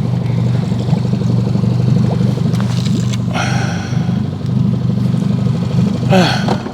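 Boat outboard motor running steadily, with a short rushing noise about three seconds in.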